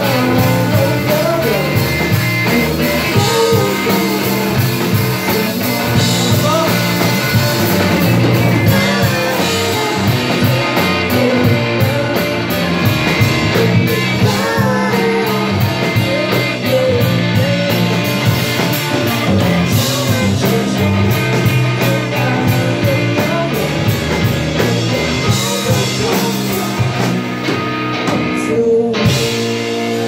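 Live indie rock band playing: electric guitars, bass guitar and drum kit under a sung vocal line.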